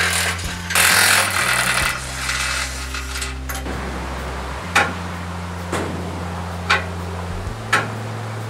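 Sounds of hand-tool work on a rusty steel shed frame over background music with a steady bass line: a noisy rasping stretch in the first two seconds, then four sharp metal knocks about a second apart.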